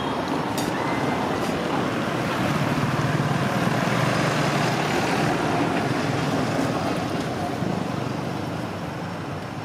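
A passing motor vehicle: a steady rumble of road noise that swells a few seconds in and fades toward the end.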